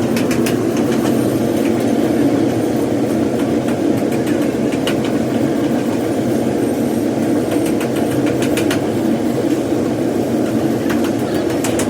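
A steady machine running noise, even and unbroken, with a few faint scattered clicks.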